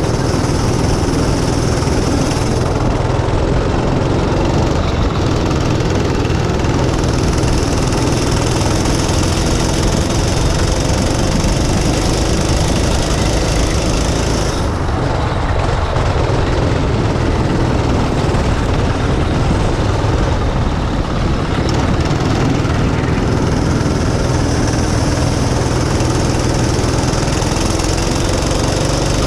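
Go-kart engine running hard on track, its note rising and falling as the kart speeds up and slows through the corners. Wind rushes over the helmet-mounted microphone.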